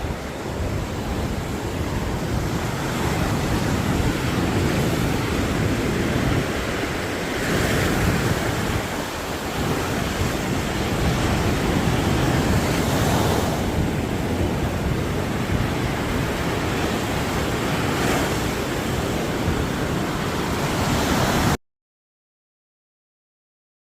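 Sea surf breaking on a sandy beach: a steady wash that swells every few seconds as waves crash, with wind rumbling on the microphone. It cuts off abruptly to dead silence near the end.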